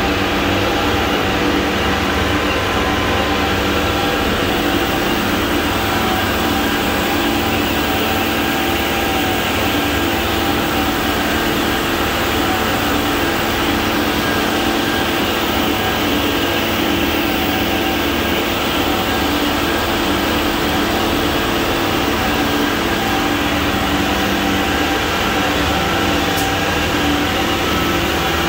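Central-mix concrete batch plant running: a loud, steady mechanical drone from the plant's turning mixer drum and drive machinery, with several steady humming tones and no let-up.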